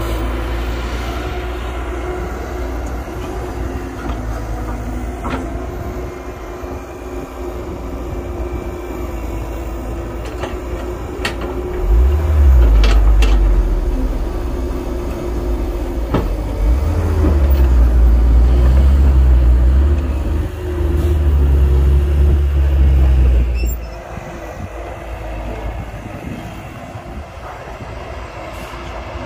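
Excavator's diesel engine and hydraulics working steadily, with deep, louder surges of effort about twelve seconds in and again for several seconds in the second half, and a few sharp metal clanks.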